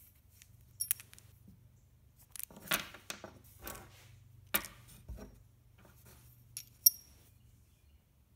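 Small steel screws and a steel vise jaw plate being handled on a wooden workbench: a few sharp, ringing metal clinks, the loudest near the end, between short rattles and scrapes.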